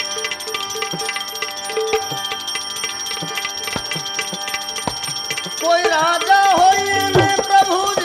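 Live bhajan music: tabla keeps a steady rhythm under held, ringing drone tones. A louder melody with sliding, wavering notes comes in about six seconds in.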